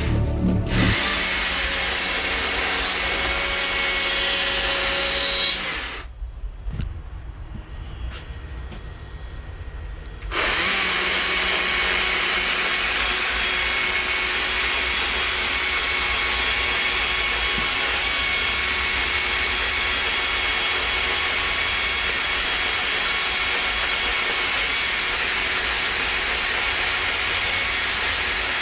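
A power tool working wood, running steadily at full speed. About six seconds in it drops to a much lower level for about four seconds, then comes back to full running.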